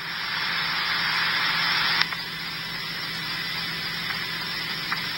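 Police radio static hiss from a scanner stream played through a phone's speaker, heard between transmissions; the hiss steps down to a lower level about two seconds in, over a faint steady hum.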